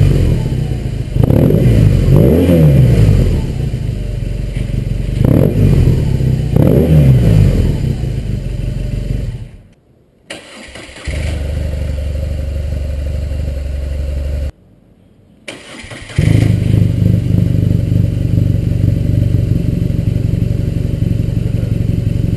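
A 2008 BMW R1200 GS Adventure's boxer twin revved in several quick blips, each rising and falling back. After abrupt cuts it runs steadily in two spliced takes, the second louder.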